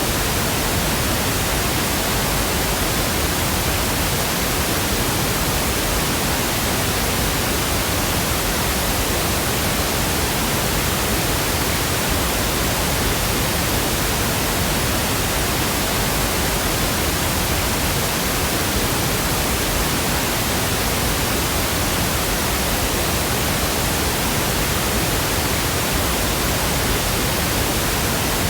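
Steady pink noise: an even, unchanging hiss across all pitches, without breaks or any other sound.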